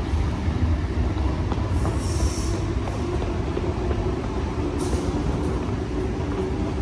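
NSW TrainLink XPT diesel passenger train running past: a steady low diesel rumble under the rolling of its carriages' wheels on the rails. Brief high-pitched wheel squeals come twice, about two and five seconds in.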